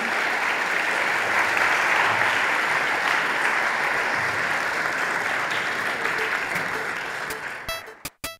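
Audience applauding steadily, fading and cutting off near the end.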